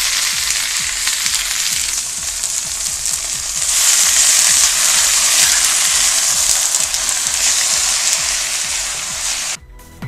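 Marinated chicken and beef with chives sizzling in a hot wok, the frying hiss getting louder about four seconds in. It cuts off suddenly near the end.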